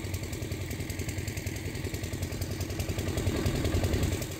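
Gusty windstorm buffeting the microphone with a low, uneven rumble that grows stronger about three seconds in.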